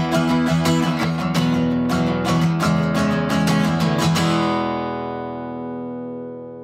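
Background music on acoustic guitar: strummed chords, then a last chord left to ring out and fade from about four seconds in.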